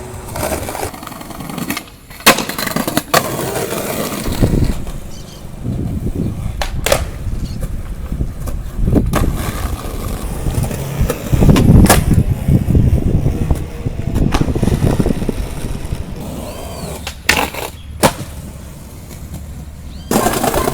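Skateboard wheels rolling with a rumble that swells and fades, broken by several sharp clacks of the board striking the ground on pops and landings.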